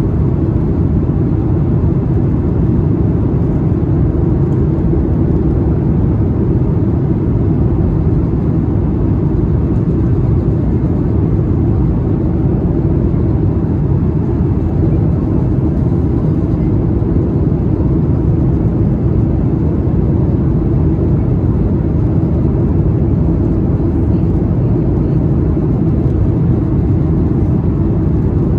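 Steady low rumble inside the cabin of a Boeing 737-8 MAX descending toward landing: its CFM LEAP-1B engines and the airflow over the fuselage.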